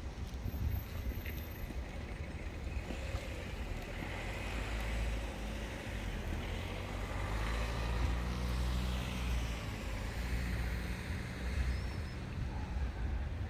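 Street ambience: wind rumbling on the microphone over the engine and tyre noise of road traffic, swelling a little in the middle.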